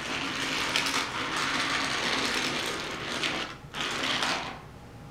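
Die-cast Take n Play toy engine pushed by hand along a plastic toy train track, its wheels rolling with a steady rattling whirr. It pauses briefly about three and a half seconds in, runs again for under a second, then fades.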